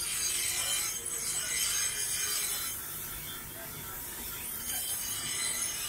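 Steel butcher's knife blade being ground on the spinning abrasive wheel of a bench grinder: a steady grinding hiss that eases off around the middle and picks up again near the end.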